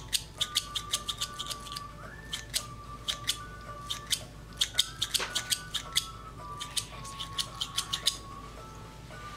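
Spring-loaded embroidery thread snips squeezed over and over, the metal blades clicking shut in quick runs of snips, which stop about a second before the end. Soft background music underneath.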